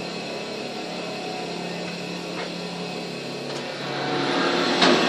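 BRAUN high-pressure billet grinding machine grinding a billet, the wheel running steadily against the metal over a constant low hum. The grinding grows louder about four seconds in.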